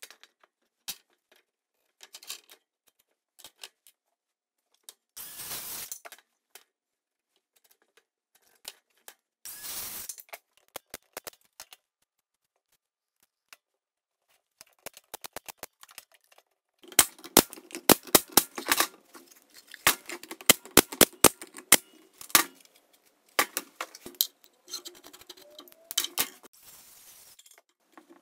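Workshop handling of wood and tools during the assembly of a plywood box: scattered sharp clicks and knocks, with two short rushing noises early on. About halfway through, a quick run of louder sharp clicks and knocks sets in and goes on, irregularly, to near the end.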